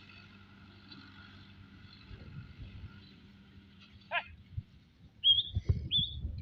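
Tractor engine humming faintly and steadily, with two short bird chirps near the end and some low rumbling as the sound grows louder.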